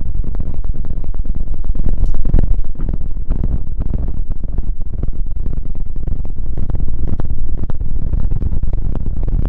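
Hands rubbing and massaging right against the microphone: a dense run of quick scratchy strokes over a low, rumbling handling noise.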